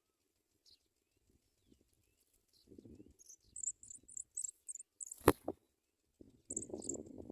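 A quick run of about seven very high, thin chirps from nestlings at the nest, with low rustling of the nest before and after and one sharp tap just after the chirps, the loudest sound.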